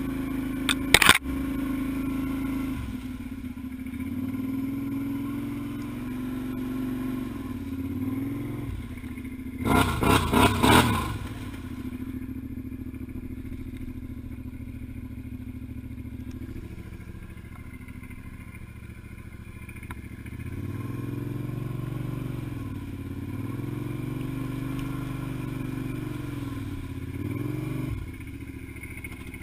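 Suzuki ATV engine running as the quad wades through deep water on a flooded trail. The engine note is steady at first, then rises and falls again and again with throttle blips in the last third. Loud bursts of clatter come about a second in and again around ten seconds in.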